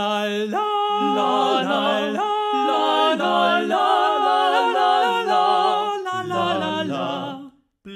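Male vocal quartet singing a cappella in close harmony, with a bass line under tenor and baritone voices. The singing breaks off briefly near the end, then picks up again.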